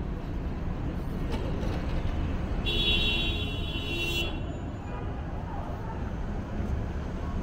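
City street traffic with a steady low rumble of passing vehicles. About three seconds in, a loud, high hissing squeal lasts about a second and a half.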